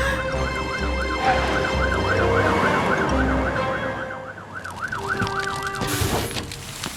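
Cartoon fire-truck siren wailing in a fast rise and fall, about three cycles a second, stopping near the end. A low pulsing rumble runs underneath for the first half.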